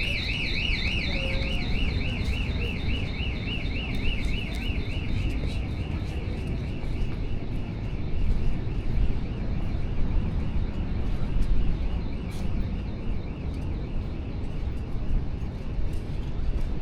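Car alarm sounding a high electronic warbling tone that wobbles up and down several times a second and fades out about five seconds in, over a steady low rumble of street noise.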